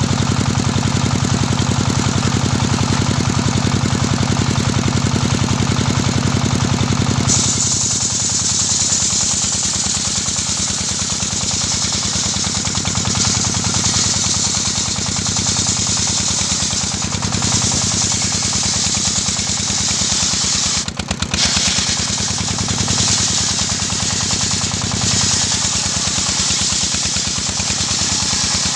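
Engine-driven portable circular sawmill running with a steady rapid beat; about seven seconds in the large blade bites into a gmelina (white teak) beam and a loud high hiss of ripping wood joins the engine, easing briefly about three-quarters of the way through as the cut goes on.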